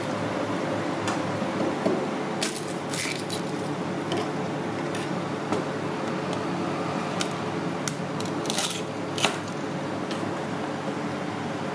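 Kitchen cooking noise: a steady background hiss and hum with scattered short metallic clinks and scrapes of utensils, clustered about a quarter of the way in and again about three quarters of the way through.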